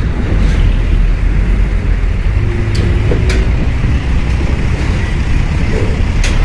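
Heavy trucks' diesel engines running, a steady low rumble, with a short faint tone and a couple of clicks about three seconds in.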